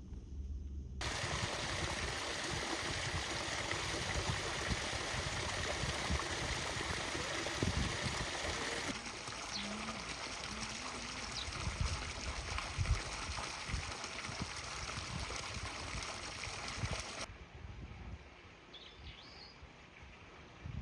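Steady rush of running water, cut in and out abruptly twice as the shots change. Near the end it drops away, leaving a quieter outdoor background with a few faint bird chirps.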